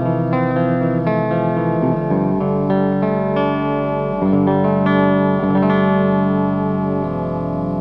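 PRS Custom 22 electric guitar played through a Blackstar Artisan 30 valve amp with the Dreadbox Disorder fuzz pedal bypassed. Sustained chords and notes ring out in a clean-sounding tone, changing every second or two.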